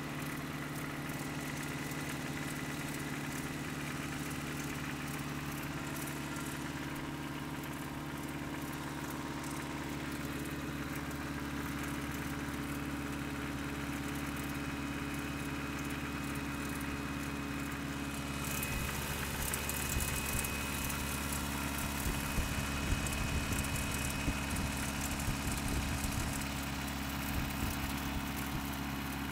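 Toyota 22RE four-cylinder engine idling steadily, with a knocking clatter that the owner suspects comes from a worn timing chain and possibly rod knock. About two thirds of the way in, the clatter grows louder, with irregular sharp clicks.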